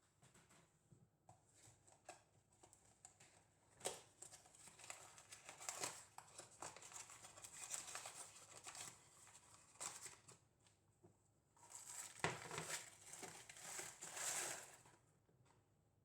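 Faint crinkling and rustling of handled wrapping, with scattered light clicks and knocks. It is busiest around four, six and ten seconds in, and again from about twelve to fourteen seconds.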